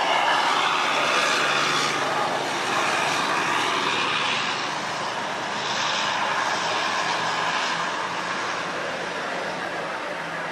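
Diesel tour coaches passing close by one after the other, engines running with the rush of the bus going past. A second coach draws near and passes close near the end.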